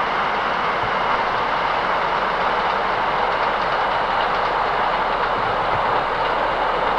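Steam locomotive J1211 and its excursion train running past at speed, heard as a steady rushing noise.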